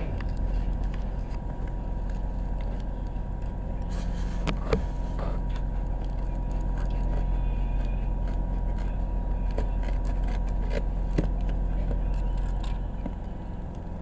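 A steady low hum, with a few light taps and rustles as a plastic-wrapped courier parcel is turned over in the hands.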